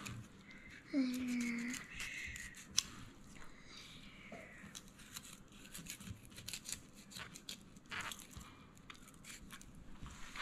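Knife filleting a whole pompano on a cutting board: a run of soft scrapes and small crunching clicks as the blade works through the flesh, with one sharper click about three seconds in. A short hummed voice sounds about a second in.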